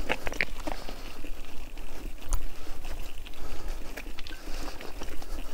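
Bicycle ride over rough ground: a steady wind rumble on the microphone, with scattered clicks and rattles and a few short squeaks near the start.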